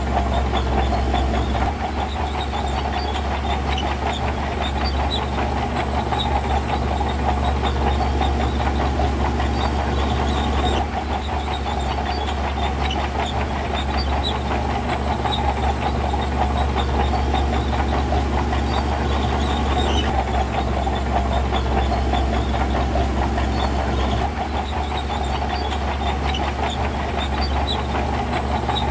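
Diesel engine of heavy earthmoving equipment running steadily with a deep low hum. The sound shifts abruptly a few times.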